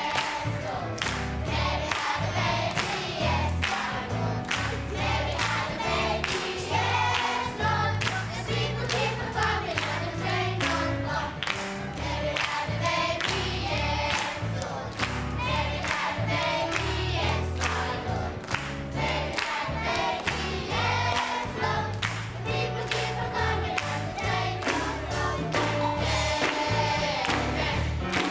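A church gospel choir, mostly children, sings an upbeat Christmas song with hand-clapping on the beat over a deep bass line.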